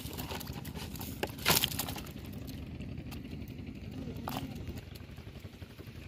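Steady low rumble, with one brief rustling clatter about one and a half seconds in and a faint voice just after four seconds.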